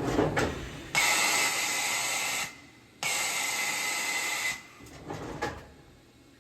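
Compressed air on a Bridgeport VMC3020XV vertical machining center: two even hisses, each about a second and a half long, with a short clatter just before the first and another about five seconds in.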